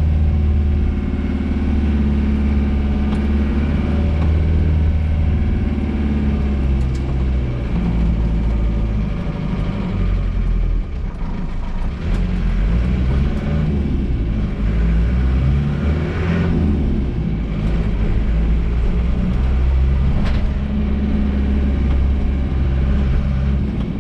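Diesel vehicle engine running under way, a steady low drone whose pitch shifts as the engine speed changes, dipping briefly around the middle.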